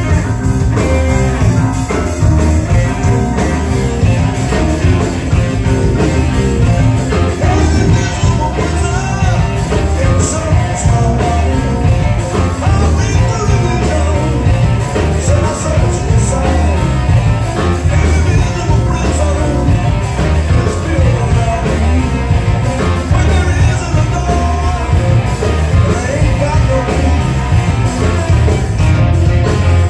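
Rock band playing live: a male lead singer over electric guitar, bass guitar, drum kit and keyboards, loud and continuous.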